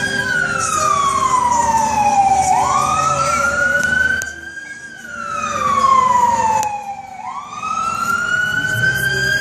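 Fire truck siren wailing, its pitch rising and falling in slow sweeps that peak about every five seconds. The whole sound dips briefly in the middle.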